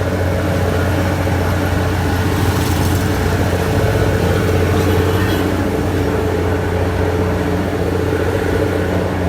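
Large diesel engine of road-works machinery running steadily at a constant speed, with a deep, even hum.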